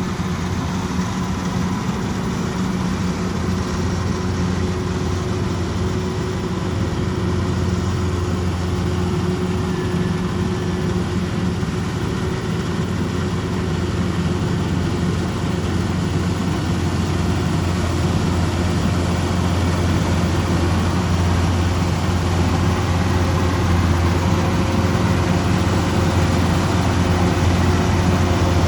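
Kubota DC-105X rice combine harvester's diesel engine running steadily while harvesting, a low even drone that grows a little louder toward the end.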